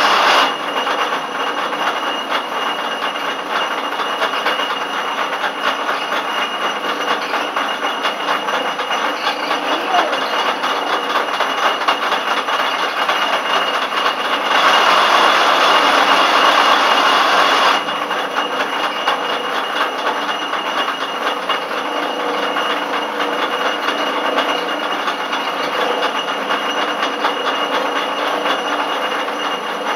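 Schaublin 102 CNC lathe running while cutting a thread: a steady machine whir with a thin high tone through it. It swells louder for about three seconds halfway through.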